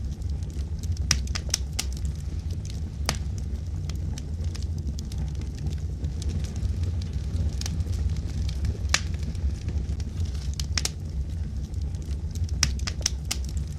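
Wood logs burning: a steady low rumble of the fire with scattered sharp crackles and pops at irregular intervals.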